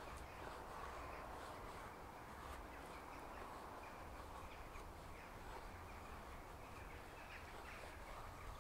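Faint, repeated scraping strokes of a Glock FM 78 field knife's blade shaving thin curls off a resinous pine fatwood stick to make a feather stick.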